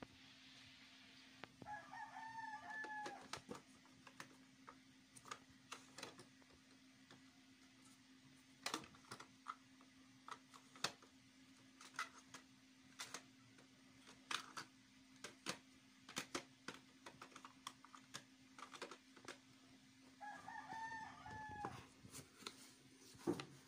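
A rooster crowing twice, about two seconds in and again near the end, over faint clicks and knocks of small plastic organizer drawers being handled and pulled open, with a steady low hum underneath.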